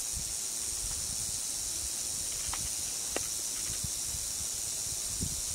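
Timber rattlesnake rattling its tail: a steady, high-pitched buzzing hiss that holds without a break, the snake's defensive warning. A few faint clicks sound over it.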